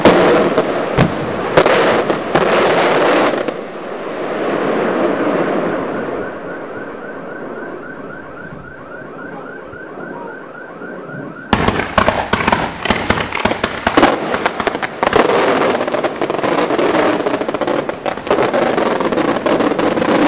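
Daylight fireworks: rapid volleys of sharp bangs and crackling, easing into a fading crackle and hiss from about three seconds in, then a sudden dense barrage of rapid reports from about eleven seconds in until the sound cuts off.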